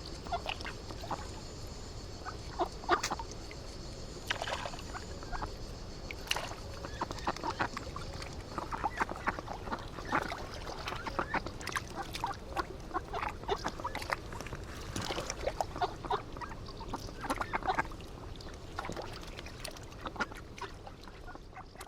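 Waterfowl such as ducks and geese calling repeatedly, with many short calls scattered throughout over a steady low background noise.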